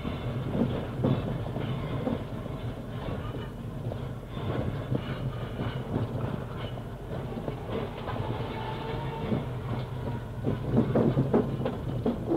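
Glasgow Corporation Coronation Mark 1 tram running on its rails, with a steady low hum under irregular clacks and knocks from wheels and track that grow louder near the end. Old, muffled tape recording.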